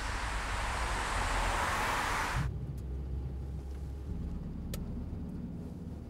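A car driving along a road, its tyre and engine noise swelling as it approaches, then cutting off abruptly about two and a half seconds in to the low, steady engine drone inside a small car's cabin, with a single faint click later on.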